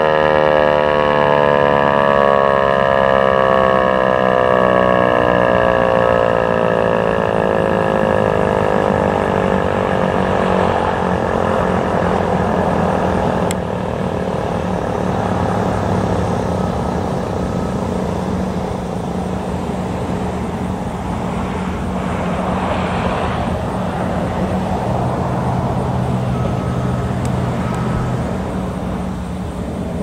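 American Signal T-128 rotating outdoor warning siren winding down at the end of its Alert signal, its pitch falling steadily over about the first ten seconds until it fades out. Road traffic noise with a low hum carries on after it.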